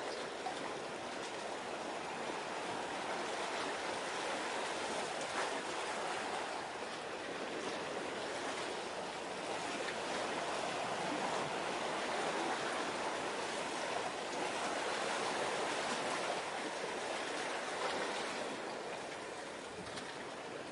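Steady rushing wash of sea water, swelling a little in the middle and easing near the end.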